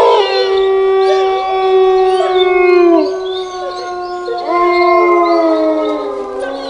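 Long drawn-out canine howls, several voices overlapping. Each is held on one pitch and then slides downward. A second long howl rises in about halfway through and fades away at the end.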